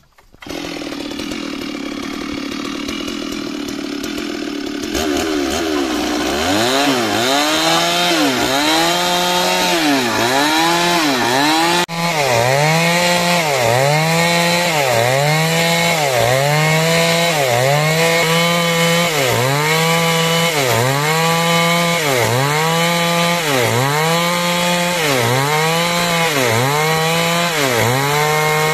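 Stihl chainsaw running at steady high revs, then from about five seconds in cutting through timber under load. Its pitch dips and recovers in a steady rhythm about once a second.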